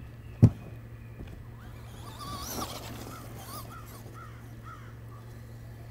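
A single sharp thump about half a second in, then a run of about six short rising-and-falling chirping calls between two and four seconds in, over a steady low hum.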